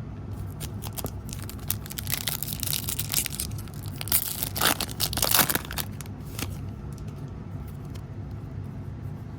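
A trading-card pack wrapper being torn open and crinkled, a dense run of crackling that is loudest about halfway through, over a steady low hum.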